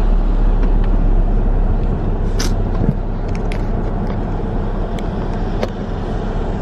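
Steady low rumble inside a car's cabin with the engine running, broken by a few light clicks and a brief hiss about two and a half seconds in.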